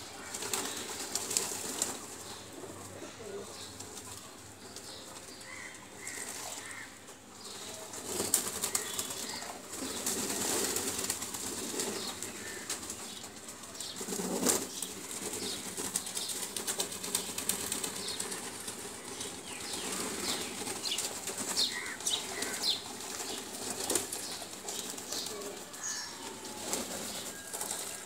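A flock of domestic pigeons flapping and fluttering their wings, in irregular bursts, with many small clicks scattered among them.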